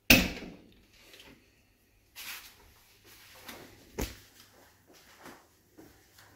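A loud sudden bang at the start that rings on briefly in a bare concrete corridor, followed by softer knocks and scuffs and a sharp click about four seconds in.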